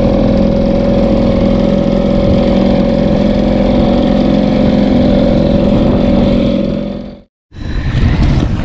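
Hangkai 3.6 HP outboard motor running at a steady speed, pushing an inflatable boat across the sea. It cuts off abruptly about seven seconds in, and wind and splashing water follow.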